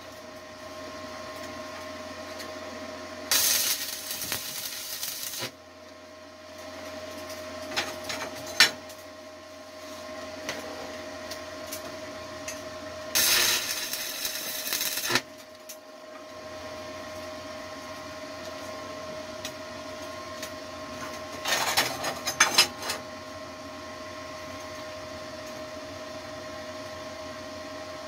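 Stick welding arc burning a 6013 rod at 75 amps on 1/8-inch steel plate: three short tack welds, each a crackling hiss of about two seconds that starts and stops abruptly. A steady hum fills the gaps between them, with a few sharp clicks between the first and second tack.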